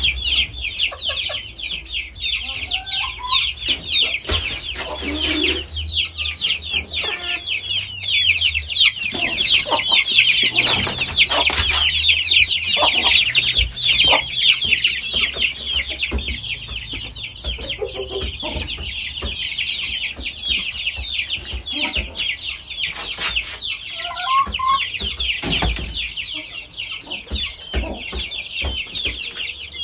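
Chickens in wire-fronted pens clucking now and then over a continuous, high, rapid chirping chorus, with occasional knocks.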